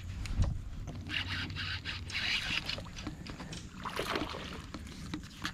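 Baitcasting reel being cranked to retrieve a lure, a rapid mechanical whirring and clicking. Water and boat noise sit underneath, with a sharper splash-like burst about four seconds in.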